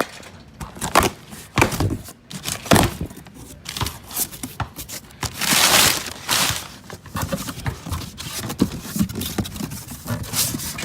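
Packaging being torn open and crinkled around new strut assemblies, with scattered knocks and handling noises and a longer rustling tear about halfway through.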